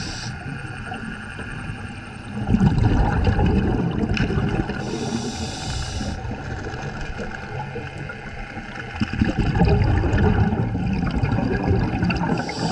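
Scuba diver breathing through a regulator underwater: a hiss on each inhale and a rush of bubbles on each exhale, about two breaths.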